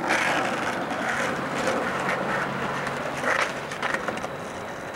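Skateboard wheels rolling on rough asphalt, a steady rumble with a brief louder scrape about three and a half seconds in.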